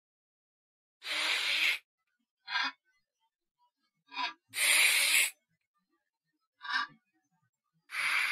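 Breathy hissing bursts separated by silence: three long ones, one about every three and a half seconds, with shorter ones between.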